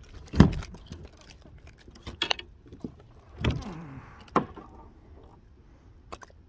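Knocks, clicks and rattles of fishing gear and a caught small smallmouth bass being handled in a plastic kayak, with a loud knock about half a second in and another about three and a half seconds in.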